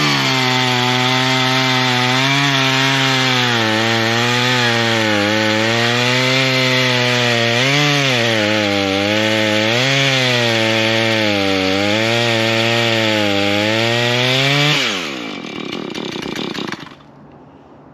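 Husqvarna 440 two-stroke chainsaw at full throttle, cutting into a wooden stump; the engine pitch dips and recovers as the chain loads up in the wood. About fifteen seconds in the revs fall away as the throttle is released, and the saw goes much quieter near the end.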